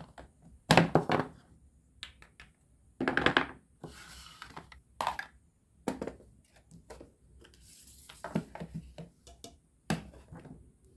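Plastic and wooden toy kitchen pieces being handled and set down on a table: a series of separate knocks and clatters every second or two, with a couple of short scraping noises between them.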